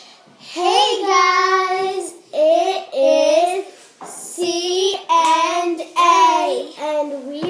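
A child singing several drawn-out phrases with long held, wavering notes.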